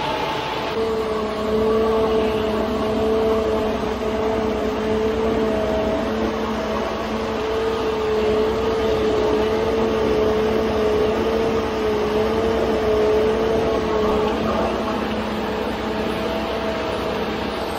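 Concrete conveyor truck running while it feeds concrete down its boom and chute: a steady mechanical drone with a wavering high whine over it.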